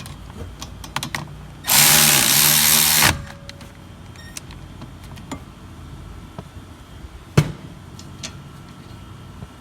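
A cordless power tool runs in one burst of about a second and a half, driving in a 12 mm brake caliper bolt. A single sharp metallic click follows a few seconds later.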